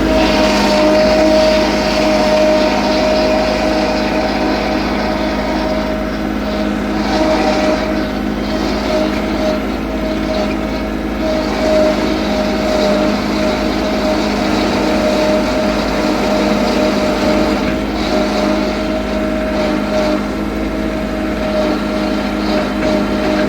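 A machine running steadily, a constant-pitched hum that holds the same speed throughout.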